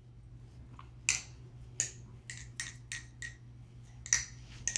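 MachineWise Mayrn Lite balisong being flipped: its metal handles and pivots give about ten sharp, irregular clicks and clacks with a short ring, under a low steady hum.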